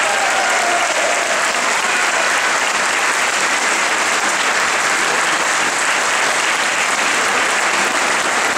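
Steady applause from an audience and a choir clapping together.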